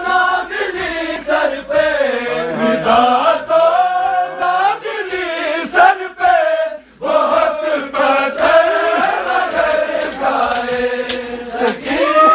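Men's group chanting a noha mourning lament in unison, with long, wavering sung lines and no instruments. There is a brief pause about seven seconds in. Occasional sharp slaps sound among the voices.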